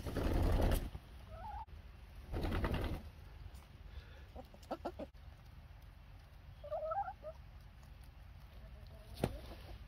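Hens flapping their wings in two short, loud flurries, one at the start and one about two and a half seconds in, to keep their balance on slippery ice. Soft clucks and brief calls come in between, and there is a single sharp knock near the end.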